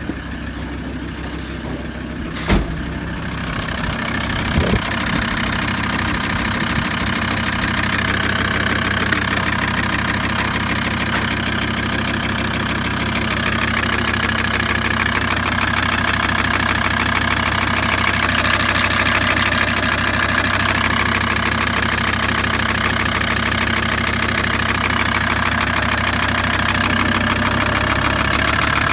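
VW T4 five-cylinder diesel engine idling steadily, louder from about four seconds in. One sharp knock about two and a half seconds in.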